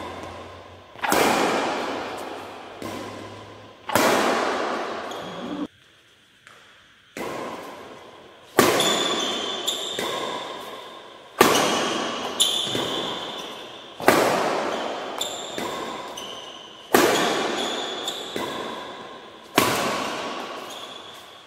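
Badminton racket striking a shuttlecock again and again, about every two to three seconds. Each sharp hit is followed by a long echo in a large hall.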